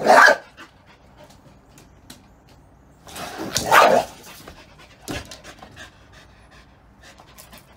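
A dog giving loud, breathy barks: a short one at the start and a longer one about three seconds in, then a few shorter sounds near the end.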